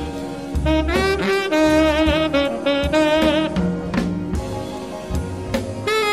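Blues band recording: a tenor saxophone solo enters about a second in, sliding between notes with a wavering vibrato, over the band's bass and drums.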